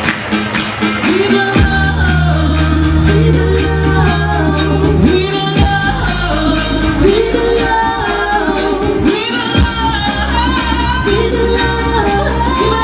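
Live soul and R&B set: women's voices singing over a beat with deep sustained bass notes and a steady drum pattern.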